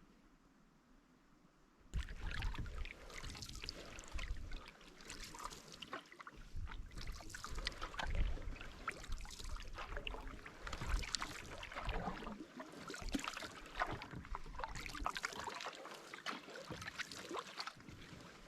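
Canoe being paddled: paddle strokes dipping and splashing in the water, with knocks against the hull. It starts about two seconds in, with wind gusting on the microphone.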